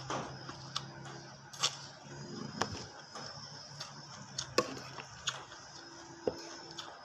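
About ten sharp clicks and taps at irregular intervals, the sounds of a plate of food being eaten, over a steady low hum.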